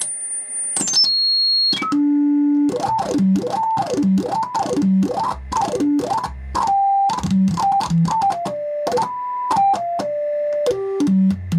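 Pure sine tones from a vintage Rockland (Wavetek) 5100 DDS frequency synthesizer played through a stereo amplifier and speakers. The pitch keeps changing: a high whistle drops to a lower one about a second in, a low hum comes in, then the tone slides rapidly up and down and steps downward, with a small click at most changes.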